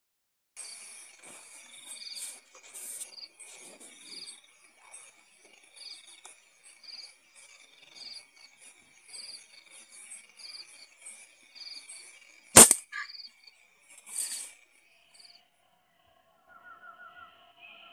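Crickets and other night insects chirring steadily with regular pulsing chirps. About twelve and a half seconds in, a single sharp, loud crack of a .177 air rifle firing, followed about two seconds later by a shorter burst of noise.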